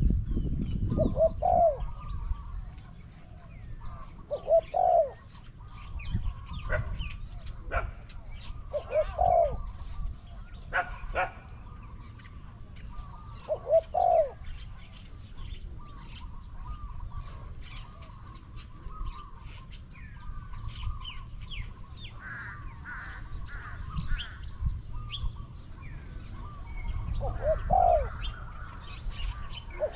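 Spotted dove cooing: a short, low phrase repeated five times with a long pause in the middle, over the steady twittering of small birds.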